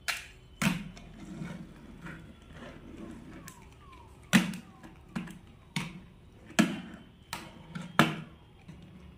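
Small plastic toy cars knocked and set down on a wooden surface: about eight sharp clacks at irregular intervals, two of them in the first second and the rest spread through the second half.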